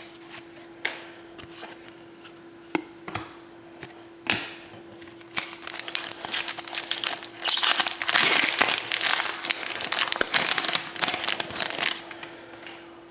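Foil trading-card pack wrapper crinkling as it is torn open and handled, starting about five seconds in and loudest near the middle, after a few light taps and clicks of cards being handled.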